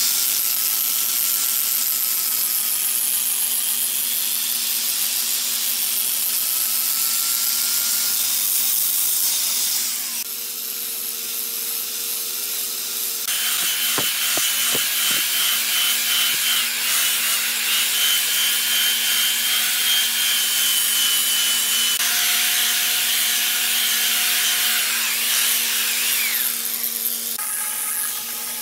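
Electric power sanders running against red hardwood: an angle grinder with a sanding disc whining and rasping on the wood, giving way about ten seconds in to a belt sander running over the board, with the grinder's steady whine back in the second half.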